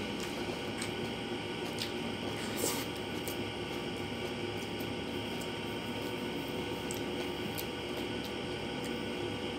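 Close-miked sounds of a person eating rice and sardines by hand: soft wet squishing and scattered small clicks as the fingers press and mix the food on the plate. The sharpest click comes about two and a half seconds in.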